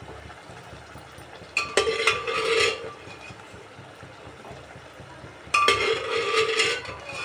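Steel ladle stirring chickpeas in masala in an aluminium pot, scraping and clinking against the pot in two bouts of about a second each, with a brief metallic ring.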